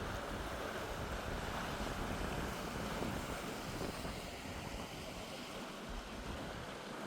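Sea surf washing against a rocky lava shore, with wind buffeting the microphone in a low, gusty rumble.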